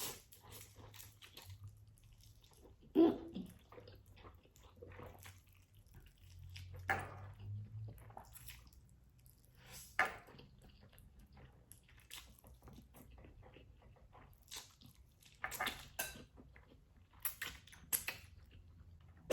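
Close-miked eating of black bean noodles: wet chewing and slurping in short, scattered bursts with quiet between, and a run of sharp little clicks near the end.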